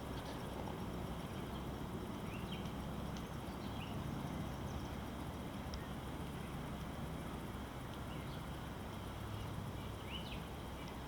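Scattered short, faint bird chirps, about half a dozen, over a steady low background rumble.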